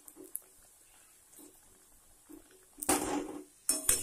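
Metal spatula scraping and knocking against a kadai while turning deep-frying samosas, twice in the last second and a half.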